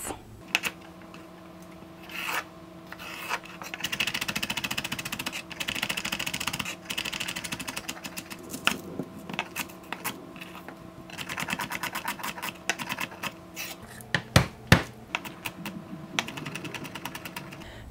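Chef's knife chopping celery and onion on a wooden cutting board: rapid runs of quick strokes, with a few separate, louder knocks of the blade on the board near the end.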